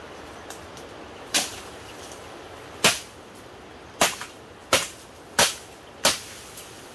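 Plant stems snapping by hand in the undergrowth: six sharp snaps spaced about a second apart over a steady background hiss.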